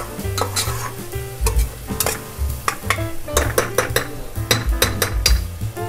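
Steel spoon stirring chopped onions and curry leaves frying in oil in a pressure-cooker pot, with a sizzle and many quick clicks and scrapes of the spoon against the metal.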